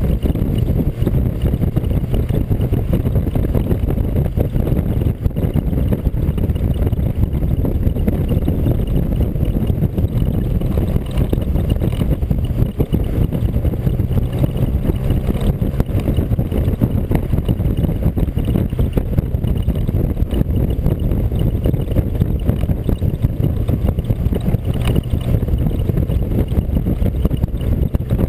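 Steady engine drone and wind rush from a vehicle cruising along a road, picked up by a camera mounted on the vehicle.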